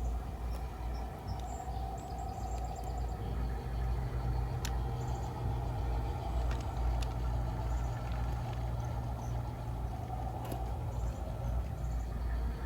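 G-scale garden railroad locomotive running with a steady low engine drone while pulling its train. Birds chirp briefly now and then, and there are a couple of sharp clicks.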